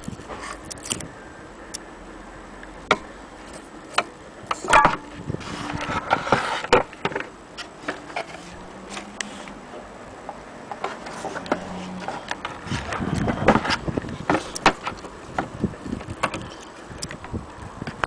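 Scattered light clicks and knocks from an old gramophone's tone arm, cabinet and soundbox being handled, with a faint low hum for a few seconds in the middle.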